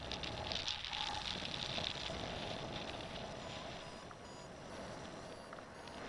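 Airflow rushing over a camera fixed to a paraglider's risers in flight, a steady hiss with light rattling and clicking of the straps and fittings, busiest in the first two seconds and easing after.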